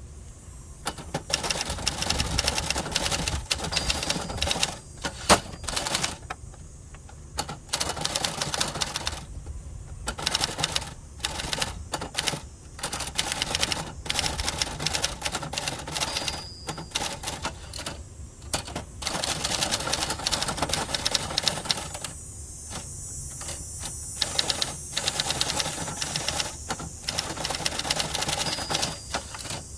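1970s Adler Gabriele 25 manual typewriter being typed on: a steady run of sharp key and typebar strikes, broken now and then by short pauses.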